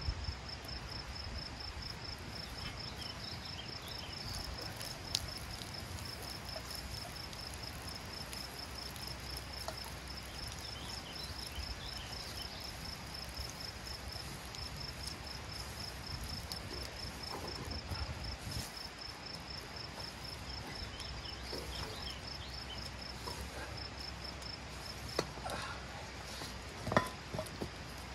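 Insects chirping steadily in a regular, evenly spaced high pulse while a well pump's drop pipe is hauled by hand out of the well casing. A few sharp knocks come near the end, the loudest just before the end.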